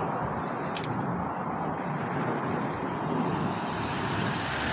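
Road traffic: cars driving by on a snowy city street, a steady hiss of tyres and engines, with one short click just under a second in.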